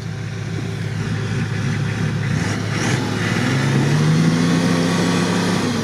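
Nissan Patrol off-roader's engine running under load as it works out of a muddy rut, the revs climbing gradually from about halfway through.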